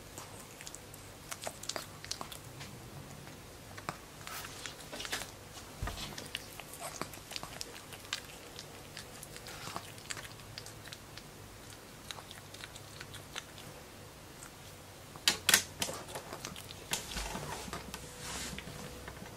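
Pekingese puppy licking and smacking its lips after eating a lickable Churu treat, with scattered small wet mouth clicks and soft rustles of a hand stroking its fur. A louder cluster of sharp clicks comes about fifteen seconds in.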